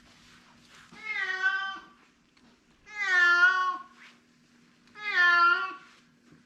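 An unhappy cat meowing: three long, drawn-out meows about two seconds apart, each lasting about a second.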